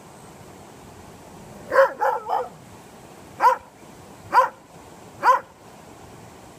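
Dog barking: a quick run of three barks about two seconds in, then three single barks about a second apart.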